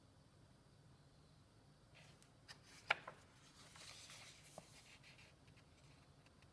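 A page of a paper colouring book being turned by hand: a few light taps about two and a half to three seconds in, the loudest near three seconds, then a brief papery rustle. Otherwise near silence.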